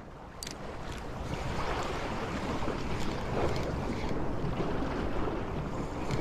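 Wind buffeting the microphone over the wash of sea water, a steady rushing noise that builds over the first second.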